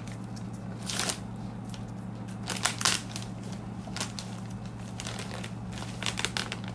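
Plastic courier mailer bag crinkling and rustling in irregular bursts as the release strip is peeled off its adhesive seal flap.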